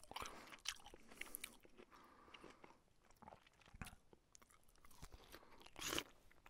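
Quiet, close-miked eating sounds of a person eating fried fish and rice by hand: chewing and crunching with short wet clicks and smacks. There is a louder burst near the end, as a fingertip wipes across the ceramic plate.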